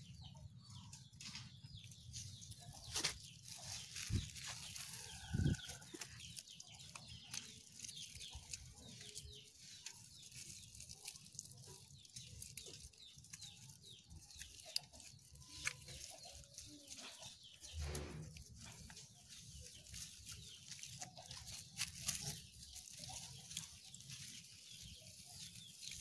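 Faint handling sounds of plastic raffia string and thin bamboo sticks as a kite frame is tied by hand: light rustling and scattered small clicks, with a couple of sharper knocks a few seconds in. Faint animal calls in the background.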